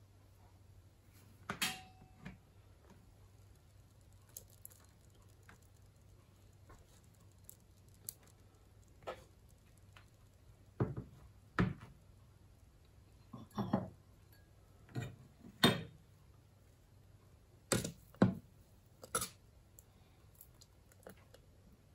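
About a dozen scattered knocks and clinks of a ladle and kitchen utensils against a soup maker's stainless steel jug, over a faint steady low hum.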